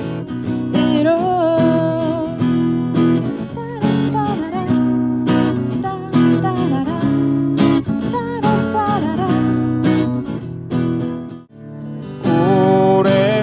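Live band music led by a strummed acoustic guitar, with a sung line ending about a second in. The music drops out briefly near the end, and then another song begins.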